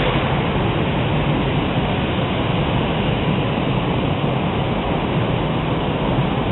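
Heavy hail and rain pelting the house roof, heard from indoors as a steady, dense noise with no breaks.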